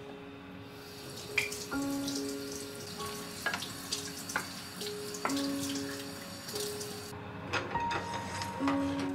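Kitchen faucet running into a stainless steel sink while a wooden rice-ball mold is wetted under it, then shut off about seven seconds in. Gentle background music plays throughout.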